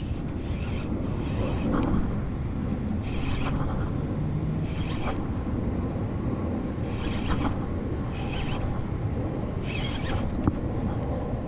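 Wind rumbling on the microphone, with short high-pitched buzzes repeating every second or two.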